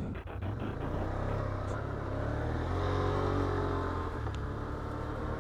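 Can-Am Outlander ATV's V-twin engine running on the trail, the revs rising a little toward the middle and then easing off.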